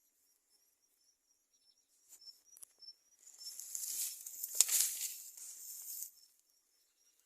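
Crickets chirping faintly in a steady repeating pattern. About three seconds in comes a burst of high rustling hiss, about three seconds long, with a sharp click at its loudest point.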